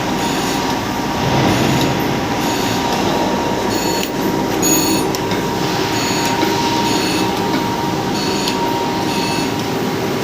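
A machine running steadily with a constant whine and a mechanical rattle, loud and unbroken throughout.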